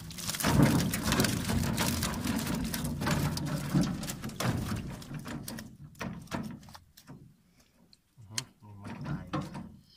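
Water streaming and dripping off a netted fish trap as it is hauled up into the boat; the splashing dies away after about five seconds, leaving scattered knocks and rattles of the trap's frame and mesh being handled.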